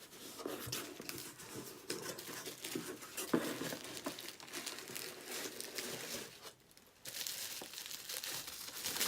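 Packaging crinkling and tearing as a box is unpacked by hand, with a brief lull about two-thirds of the way through.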